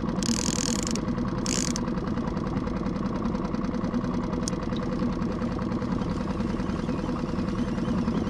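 Boat outboard motor idling steadily, with two short hissing bursts near the start.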